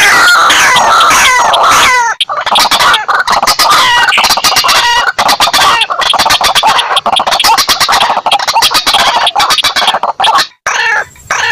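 Bird-lure recording of white-breasted waterhen and slaty-breasted rail calls: loud, harsh repeated calls at first, then from about two seconds in a long, fast run of clicking, clucking notes that breaks off briefly near the end.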